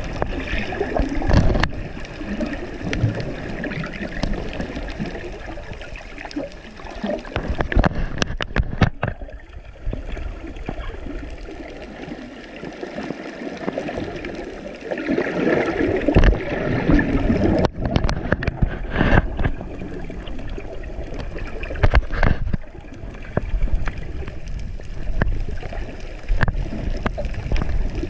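Water gurgling and sloshing around a GoPro camera held underwater, heard through its waterproof housing, with sharp knocks and clicks at irregular moments.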